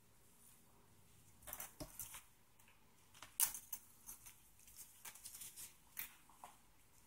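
Faint scattered clicks and rustles of alligator-clip test leads being handled and clipped onto a small bulb, the loudest tap about three and a half seconds in.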